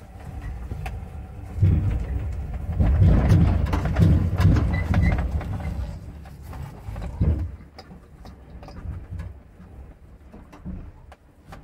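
Low rumbling and knocking with many scattered clicks and rattles inside a small electric truck's cab, loudest for the first half and then dying down.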